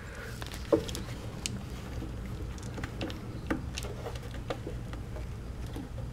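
Scattered light clicks and taps of a plastic wiring harness and corrugated wire loom being handled and routed by hand, irregularly spaced over a steady low hum.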